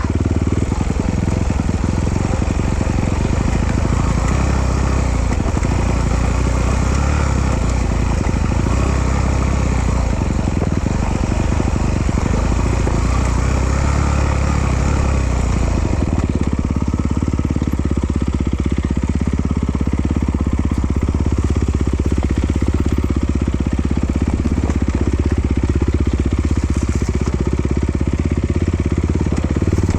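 Off-road trail motorcycle engine running continuously, its sound changing about halfway through.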